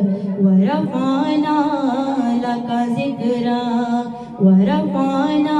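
A woman singing a naat into a handheld microphone with no instruments audible, holding long notes with melismatic turns. A short breath pause comes about four seconds in before the next phrase begins.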